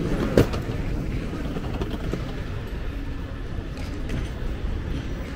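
Steady low rumble of city-street ambience, with a single sharp knock about half a second in.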